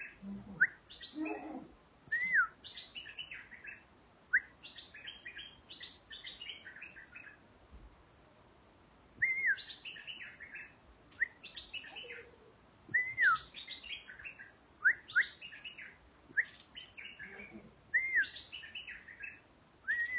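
Caged merbah lekir, a bulbul, singing: short bubbly phrases of quick chirping notes, many opening with a clear down-slurred whistle, repeated every second or two, with a short pause about halfway through.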